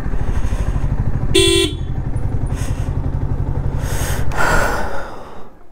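A sport motorcycle's engine running at low speed, with one short horn toot about a second and a half in. The engine stops near the end.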